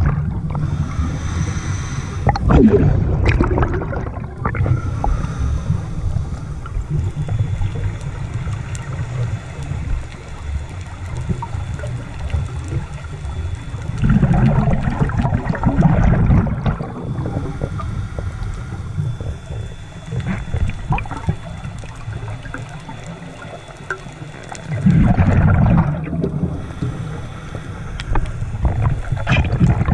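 Scuba regulator breathing heard underwater through a camera housing: a muffled bubbling rush of exhaled air in three bursts about eleven seconds apart, at the start, about halfway through and near the end, with a low steady rumble between them.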